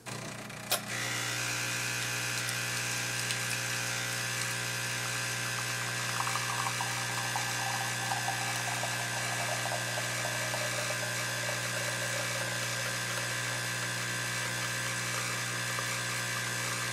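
Bean-to-cup coffee machine brewing into a mug: after a click about a second in, a steady electric buzz runs on, with a rougher crackling patch in the middle.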